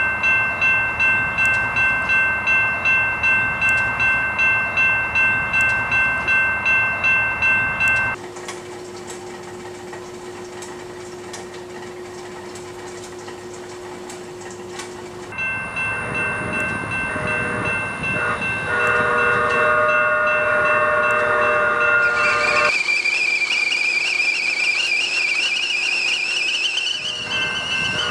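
A railroad crossing warning bell rings rapidly, about two and a half strikes a second, for about eight seconds, then gives way to a quieter steady low hum. Layered steady tones follow, then a stovetop kettle's whistle rising and wavering in pitch, with a train horn sounding under it near the end.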